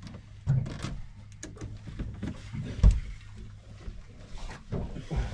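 Steady low hum of a small sea-fishing boat, with scattered clicks and knocks on deck and one sharp knock about three seconds in.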